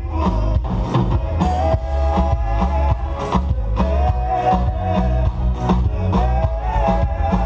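Live band playing amplified music through the stage PA: heavy bass and a steady drum beat under a melody line.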